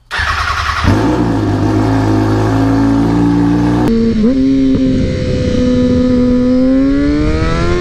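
Kawasaki ZX-6R sport bike's inline-four engine through a Two Brothers M2 slip-on exhaust, running loud at high revs. The sound cuts to a new take about four seconds in, where the engine holds a steady pitch and then slowly revs higher near the end.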